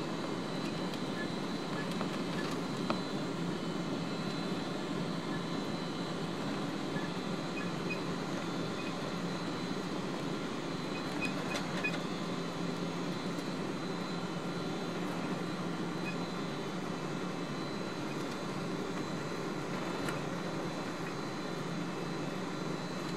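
Cabin noise inside a Boeing 777-200 taxiing: the steady hum of its Rolls-Royce Trent engines at low power with a thin high whine, over a low rumble from the wheels rolling on the taxiway. A few faint clicks.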